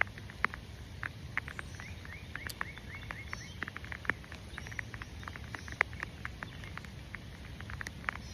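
Raindrops pattering close to the microphone: many short, irregular ticks over a steady low rumble.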